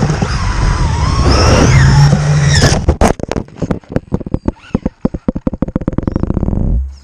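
Electric motor of a Traxxas RC car whining at speed, its pitch rising and falling. About three seconds in there is a hard crash, followed by a rapid clatter that speeds up and cuts off suddenly near the end as the car comes to rest on gravel.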